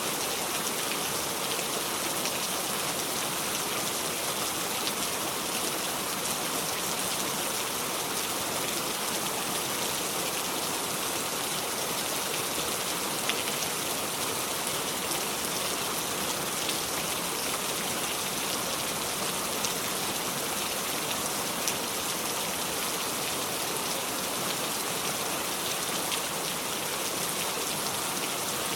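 Steady heavy rain falling without thunder, an even hiss with faint scattered drop ticks.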